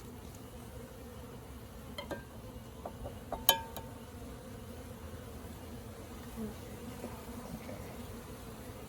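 Swarm of honeybees buzzing steadily from an opened bee package. A few light clicks, and one sharper click about three and a half seconds in, come from the package being handled.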